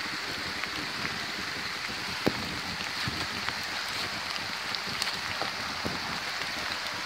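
Steady hiss of rain falling in the woods, mixed with the rush of a rain-swollen, flooding creek, with scattered sharp taps throughout.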